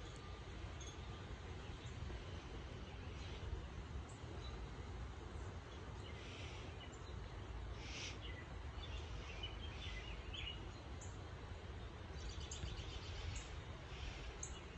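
Wild birds chirping now and then over a steady low background rumble, with a quick trill of chirps near the end.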